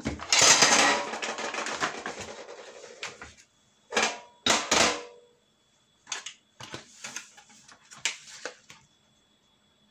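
Block of butter's paper wrapper rustling and crinkling as it is unfolded: a long rustle over the first few seconds that dies away, then a string of short, sharp crackles.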